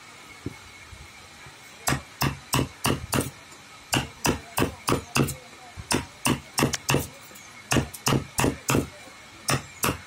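Hammer blows on wood, sharp strikes in runs of four or five at about three a second with short pauses between runs, starting about two seconds in.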